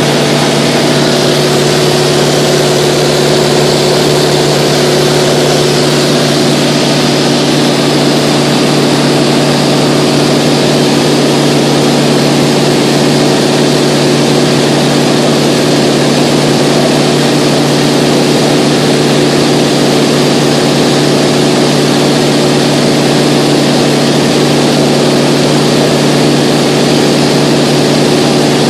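Mooney 201's four-cylinder Lycoming engine and propeller running steadily at cruise power (about 55%), heard inside the cabin as a constant low drone under a loud rushing hiss of airflow.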